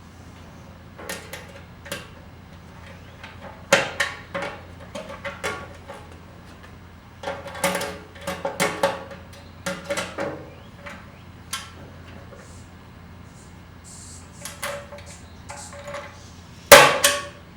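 Irregular metal clanks and knocks from tools and sheet-metal motorcycle parts being handled and tapped, the loudest clank near the end, over a faint steady low hum.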